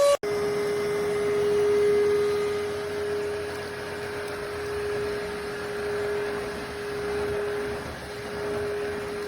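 iwoly C150 cordless stick vacuum's motor running steadily: one constant whine over a hiss of rushing air, cutting in abruptly just after the start.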